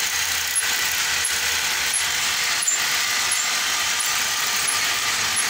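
Motorised pirn-winding machine for a handloom, running at full speed and winding blue weft yarn onto a wooden pirn. It makes a steady mechanical whir with a faint tick about every 0.7 s.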